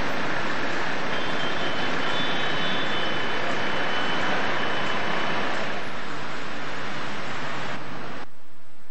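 Road traffic noise, a steady dense hiss of passing vehicles, with faint high whistling tones in the first half. The higher part of the noise drops away suddenly near the end.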